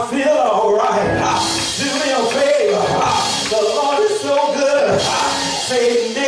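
Music with a voice singing over instrumental accompaniment.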